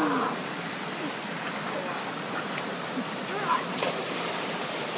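Steady rush of a mountain stream running over granite, with faint distant voices calling now and then and a single short knock near the end.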